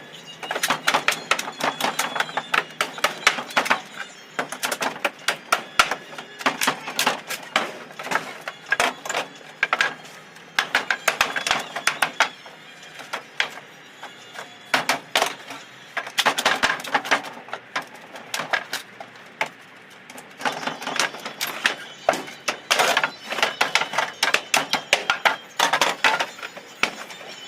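Rapid hammer strikes on wooden pallet boards and nails, coming in quick runs of blows with short pauses between.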